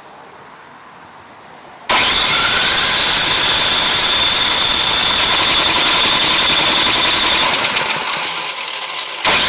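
Husqvarna ST224 snowblower being cranked over by its electric starter: a loud, steady whine that starts abruptly about two seconds in, wavers near the end, cuts out for a moment and starts again. The engine does not catch.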